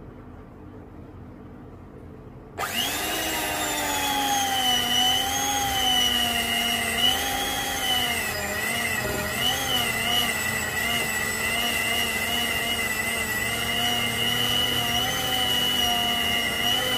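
Electric hand mixer beating sugar into cream cheese: the motor switches on a couple of seconds in and runs with a whine whose pitch wavers up and down as the beaters work through the cheese, then cuts off at the very end.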